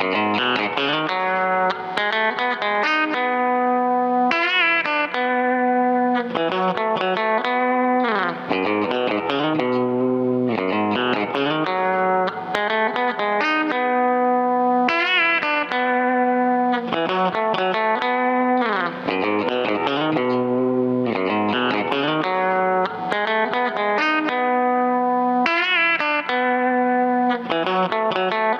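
Fender Coronado II electric guitar played through a Keeley Compressor Plus pedal into a Milkman amp: picked notes and chords held at an even, compressed level with long sustain. The same guitar passage repeats about every ten seconds, as a loop.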